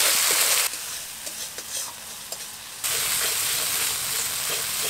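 Spice paste sizzling in hot oil in a kadai while being stirred, with small scraping clicks, as the masala is fried down. The sizzle drops away sharply a little under a second in and comes back loud about three seconds in.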